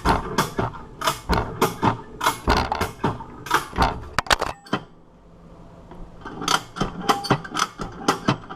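Ratchet strap being cranked tight around bolt-cutter handles, a steady run of ratchet clicks about two to three a second, with a short pause a little past the middle before the clicking resumes. Each stroke adds squeezing force on the jaws gripping the padlock shackle.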